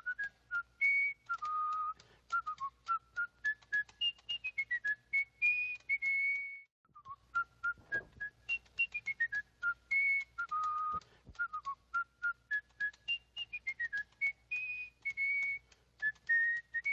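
Background music: a whistled melody of short, separate notes that step up and down in pitch. It breaks off briefly about six and a half seconds in, then the same tune repeats.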